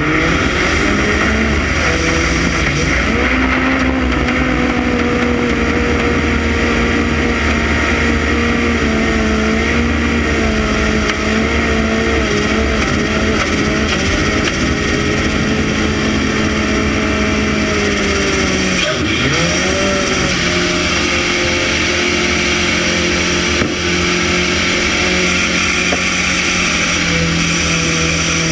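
Onboard sound of a Formula Offroad buggy's engine held at high revs as the car drives through muddy water, heard from inside the cockpit. The revs drop briefly about two-thirds of the way through, then climb again.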